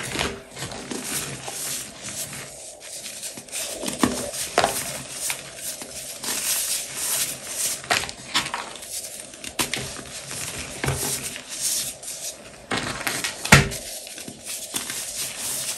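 Hands crushing and rubbing reformed gym chalk in loose chalk powder: dry crumbling and soft scrunching with many small crunches. One sharper, louder crunch comes near the end.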